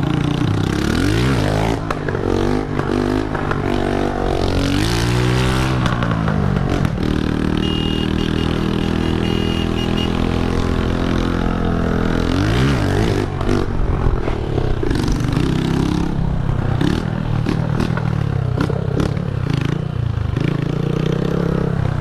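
Honda CG125's single-cylinder four-stroke engine with a loud exhaust, revving up and dropping back several times as the bike accelerates through the gears, then running at a steady cruise for a few seconds before revving up again. Short gusts of wind buffet the onboard microphone.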